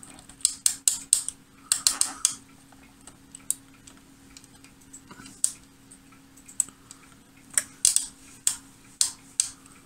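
Front-panel switches and selector knobs of a Voltcraft analogue oscilloscope being worked: sharp, irregular clicks, some in quick runs of three or four, over a faint steady hum.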